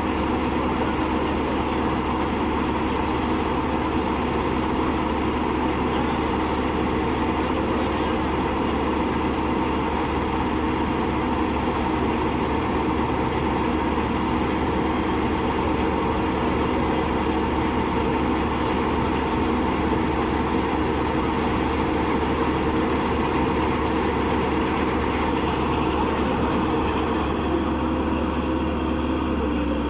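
Small engine of a rice power reaper running steadily at a constant speed.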